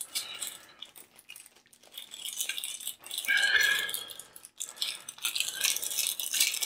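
Plastic rattling and crinkling as a bidet seat's handheld remote and its wall holder are handled, with many small clicks and a louder patch of rustling about three seconds in.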